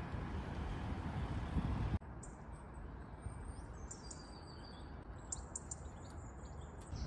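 Street traffic with a car driving past, cutting off sharply about two seconds in to small birds chirping, with short high calls and a brief whistle, over a faint background hum.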